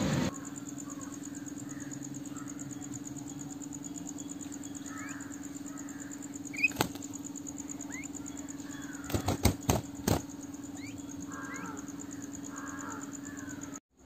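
A quail held in the hand giving a few faint, short, rising peeps, with several sharp clicks about two thirds of the way through, over a steady low hum.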